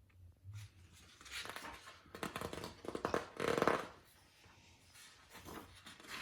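Paper rustling and crinkling as the pages of a picture book are handled and turned, loudest about three and a half seconds in, then fading to faint handling noise.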